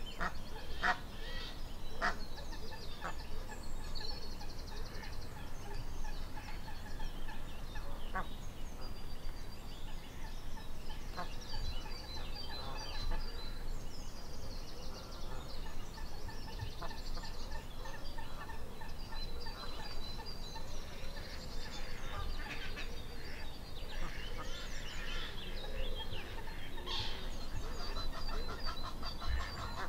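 Waterfowl calling on a lake, with small birds singing high, quickly repeated notes and trills throughout.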